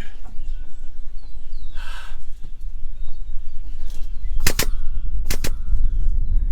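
Ratchet of a frame-straightening rig clicking as it is cranked under load: two quick pairs of sharp clicks about a second apart, over a steady low rumble.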